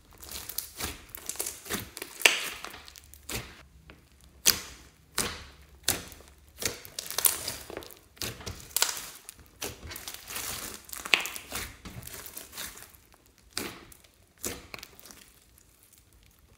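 Hands squeezing, pressing and stretching a large mass of slime with foam beads in it: sticky crackling and irregular sharp pops. The sound thins out and stops in the last couple of seconds.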